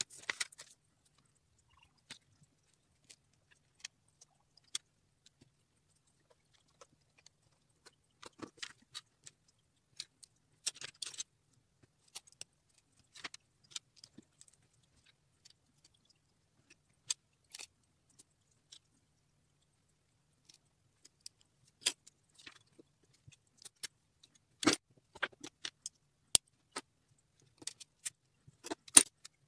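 Small plastic Lego bricks clicking and rattling as they are handled and pressed together, in scattered short clicks with quiet pauses between.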